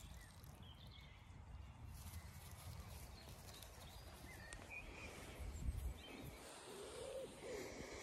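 Faint outdoor ambience: scattered faint bird chirps over a low rumble, with a dull thump about five and a half seconds in.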